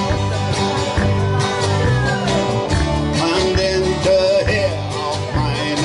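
Live band playing: strummed and picked guitars, bass and drum kit, with a steady beat and a melody line that slides in pitch.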